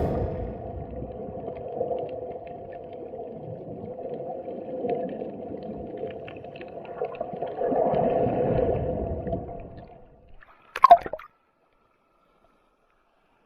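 Muffled underwater sound picked up by an action camera in its waterproof housing: churning, gurgling sea water with a steady hum, swelling louder for a couple of seconds. About eleven seconds in there is a short knock, then the sound cuts off.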